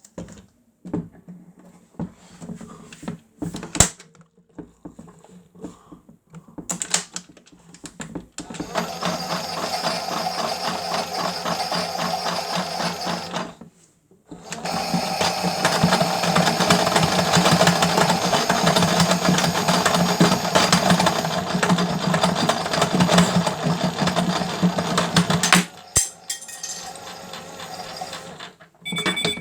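Toy washing machine's small electric motor spinning the drum for the final spin: a steady whirring hum that runs for a few seconds, stops briefly, then runs again louder for longer before cutting off near the end. Scattered clicks and knocks come before the motor starts.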